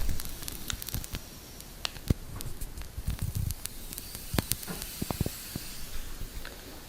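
A hissing noise with scattered crackles and pops, loudest at the start and settling lower.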